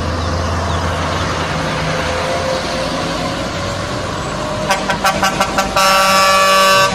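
Heavy trucks' diesel engines rumbling as a convoy passes, then a truck air horn sounded in several short toots about five seconds in and held in one long, loud blast near the end.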